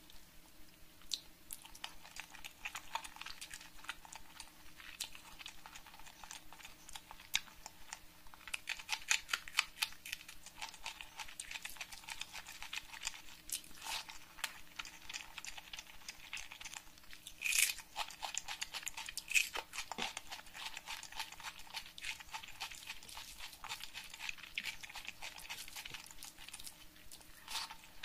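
Close-miked eating of rice with egg curry: wet chewing and many quick mouth clicks and smacks, with fingers squishing and mixing the rice on the plate. The loudest burst comes a little past the middle.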